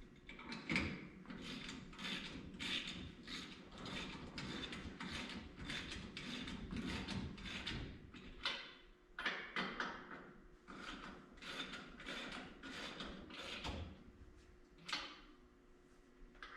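A wrench ratcheting in a steady run of short strokes, about two a second, as the bolts of a wheel's beadlock ring are run down; the strokes thin out near the end.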